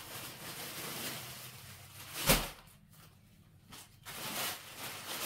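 Rustling of folded fabric and plastic wrapping being handled, with one sharp, loud thump a little over two seconds in.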